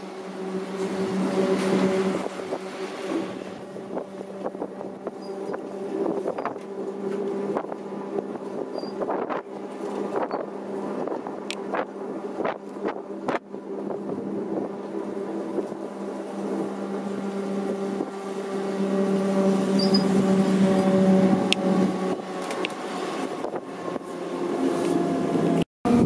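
Rail vehicles running through snow, steam rotary snowplow Xrotd 9213 with its train: a steady low hum under rushing wind and snow noise, with a few sharp knocks. It swells about two seconds in and again towards the end, and cuts out briefly just before the end.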